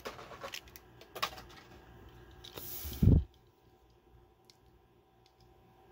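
Plastic blister pack of a carded diecast car crackling and clicking as the car is pried out, with a short rustle ending in a heavy thump about three seconds in.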